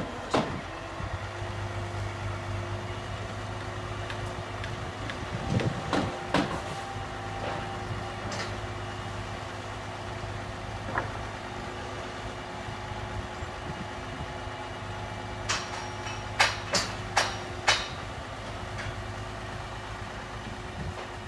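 Mobile crane's diesel engine running steadily with a low hum as it hoists a roof section. A quick series of sharp knocks about three quarters of the way through.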